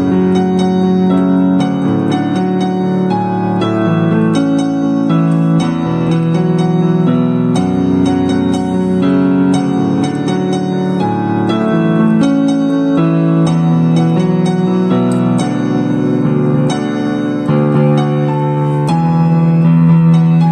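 Background piano music: a soft melody of sustained notes.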